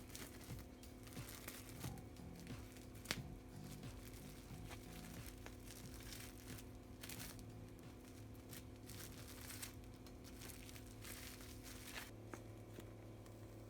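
Faint, irregular rustling and crinkling, like packaging being handled, with one sharp click about three seconds in, over a steady low hum.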